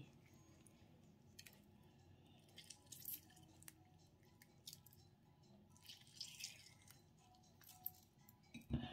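Near silence with faint clicks, squishes and drips of a lemon being squeezed by hand over a bowl of salad, and a short knock near the end.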